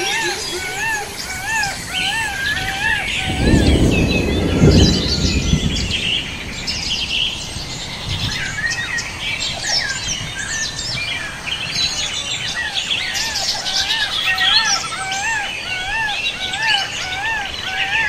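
Many wild birds chirping and twittering together, with one call repeated about twice a second through most of the stretch. A loud low rumble rises about three seconds in and fades by about five and a half seconds.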